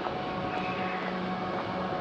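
A steady mechanical hum holding a few even tones over a wash of street noise, from an engine or machine running close by.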